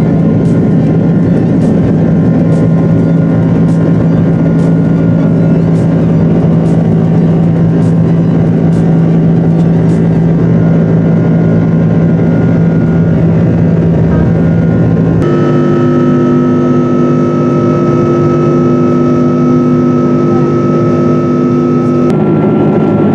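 Jet airliner engines heard inside the cabin at high power during the takeoff roll and climb-out: a loud, steady drone with a steady hum and faint regular ticks in the first ten seconds or so. The drone cuts abruptly twice, about 15 and 22 seconds in, to later stretches of flight at a different steady pitch.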